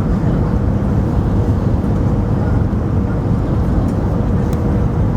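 Steady low rumble of an Airbus A320's engines and airflow, heard inside the passenger cabin, with a faint steady hum over it.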